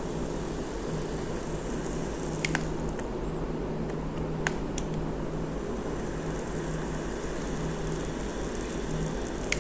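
Hot-staple plastic welder humming steadily as its trigger is held and a U-shaped staple heats and melts into the polypropylene, with a few faint clicks a couple of seconds in and again about halfway through.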